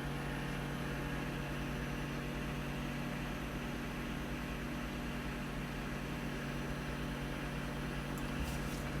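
Microwave oven running with a steady low hum while heating food. This is an intermittently faulty unit that is working this time.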